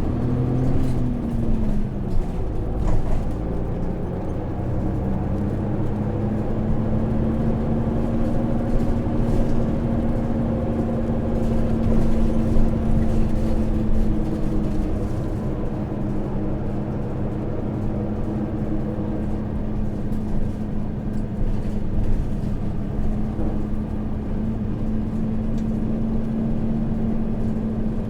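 Hino KV234 city bus's 6HK1 inline-six diesel engine running, heard from inside the passenger cabin with low road and body rumble. The engine note rises slightly, falls away about two seconds in, then holds steady.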